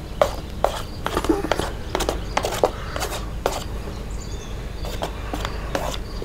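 A wooden stick scraping and tapping chopped vegetables and shredded beef off a paper plate into an aluminium foil pan: a run of irregular light clicks and scrapes, two or three a second, over a steady low hum.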